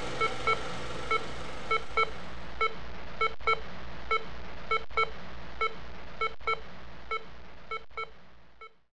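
Short electronic beeps repeating in a steady pattern, a quick pair then a single beep, over a constant hiss. The sound fades out near the end.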